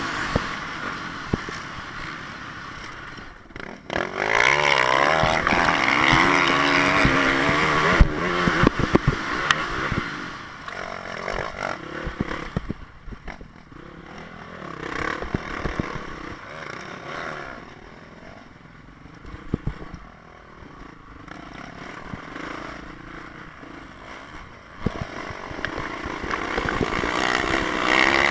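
Honda CRF450 motocross bike's single-cylinder four-stroke engine revving up and down as the rider accelerates and backs off around a dirt track. It is loudest a few seconds in, eases off through the middle, and builds again near the end.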